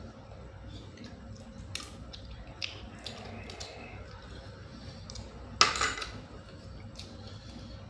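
Scattered small clicks and taps of blood cockle shells being handled and pried open while eating, with one louder clatter a little past halfway.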